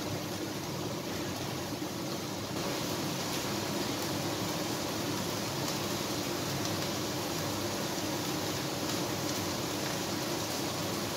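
Steady hiss and hum of background room noise, growing slightly louder about two and a half seconds in.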